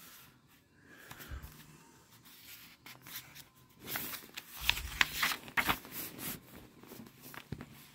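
Paper pages of a hardcover picture book being turned and pressed flat by hand: a rustling that peaks about four to six seconds in with a few crisp crackles.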